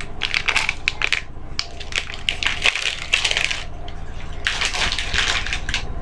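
Plastic grocery packaging and a mesh produce bag crinkling and rustling as they are handled. The rustling comes in two spells, with a short pause a little after the middle.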